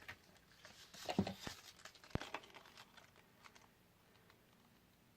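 Rustling of paper and plastic with small clicks and taps as craft supplies are handled on a desk, looking for a stamp; one sharp knock a little after two seconds, then it dies away.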